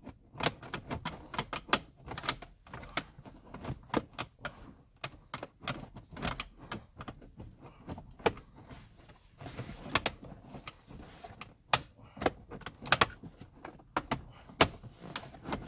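Irregular clicks, taps and rattles of hands working plastic trim and wiring connectors under a vehicle dashboard, with a few sharper knocks.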